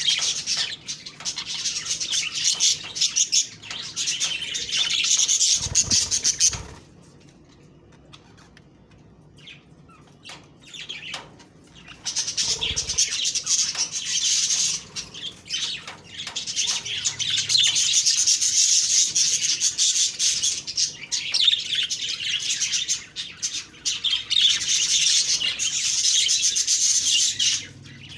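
Budgerigars warbling and chattering in a fast, continuous stream of chirps, which stops about seven seconds in, leaving a few clicks for several seconds, then resumes.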